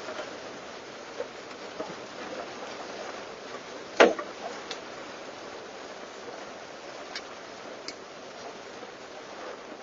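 Sparse hailstones striking the truck, heard from inside the cab over a steady hiss of rain: a few light ticks and one loud hit about four seconds in. The hail is about golf-ball size.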